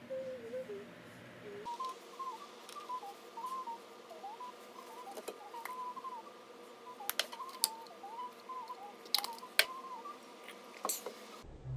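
Seasoning shakers being opened and shaken, several sharp plastic clicks and taps in the second half, over a high, warbling whistle-like melody and a steady hum.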